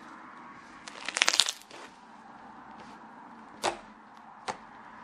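Glitter slime being squeezed and stretched by hand, making a crunchy crackle: a quick run of sharp pops about a second in, then two single pops later on.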